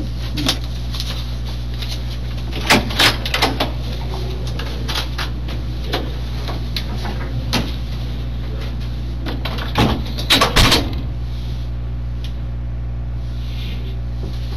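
An interview-room door being shut, heard as a few sharp knocks and clicks about three seconds in, then another cluster of clicks and knocks about ten seconds in, over a steady low electrical hum.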